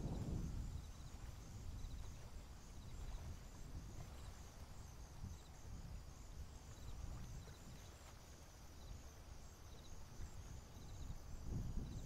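Faint outdoor wetland ambience: a steady high-pitched hiss, small short chirps repeating about once a second, and a low wind rumble underneath.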